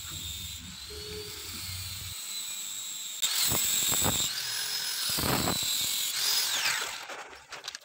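Electric angle grinders running: one spins a CVT pulley part while a sanding disc on a second grinder is pressed against it to true it by hand. A steady motor whine gives way about three seconds in to a louder whine with a grinding hiss, which rises in pitch and then winds down near the end.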